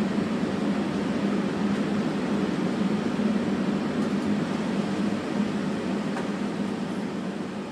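Steady air-conditioning hum inside the stopped Toronto Pearson LINK people-mover car, growing quieter over the last couple of seconds.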